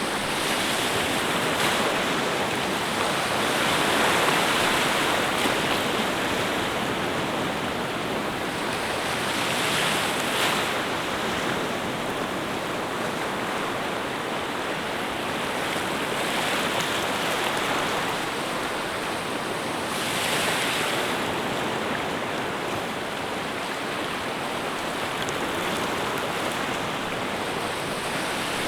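Steady rush of moving water that swells every few seconds, like waves washing in.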